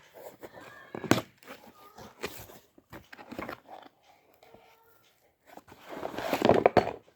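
Packaging being handled and opened: rustling and crinkling with scattered small clicks and knocks, with a louder stretch of rustling near the end.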